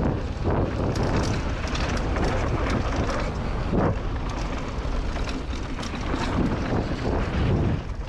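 Wind rushing over a helmet camera's microphone during a downhill mountain-bike descent, with the tyres on dirt and the Scott Gambler 710's chain and frame rattling and knocking over bumps throughout.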